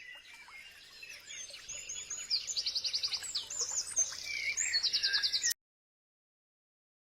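Several birds chirping and singing, with short high calls, glides and quick trills, fading in and growing louder. They cut off abruptly about five and a half seconds in.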